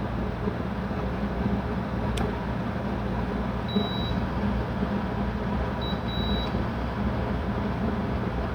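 Clamp meter's continuity beeper giving a high beep about half a second long, then a short blip and another half-second beep, as the relay's contacts close and the meter finds continuity through them. A single sharp click sounds about two seconds in, over a steady low hum.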